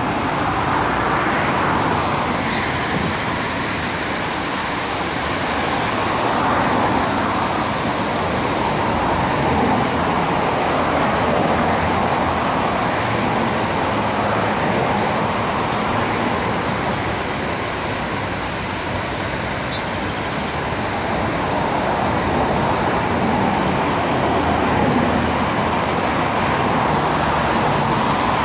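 Steady road traffic, cars passing on a busy riverside drive, the noise gently swelling and easing as vehicles come and go.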